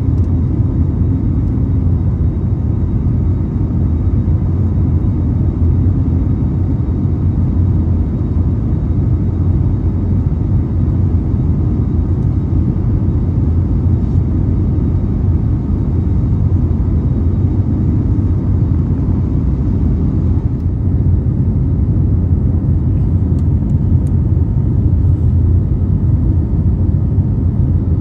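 Airbus A321neo cabin noise heard from inside the cabin: a steady, unchanging low rumble of the jet engines and airflow as the airliner climbs away after takeoff.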